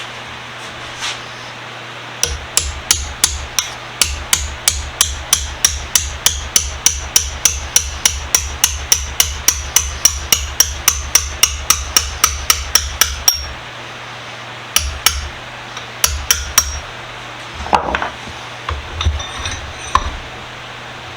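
Hammer blows struck in a fast, even run of about three or four a second, each with a short high ring, stopping abruptly after about eleven seconds; a few scattered blows follow.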